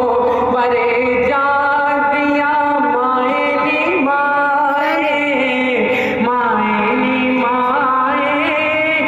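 A man singing Islamic devotional verses unaccompanied into a microphone, in long held notes with wavering, ornamented turns.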